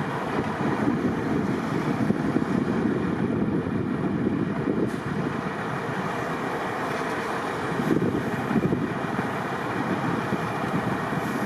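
Highway traffic noise from snowplows and vehicles moving on the freeway: a steady, fluctuating noise without any clear engine pitch, mixed with wind on the microphone.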